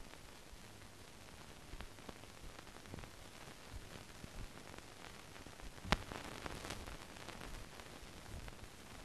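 Steady low hiss with scattered crackles and pops, and one sharp click about six seconds in: the surface noise of a silent newsreel film transfer, with no recorded sound of its own.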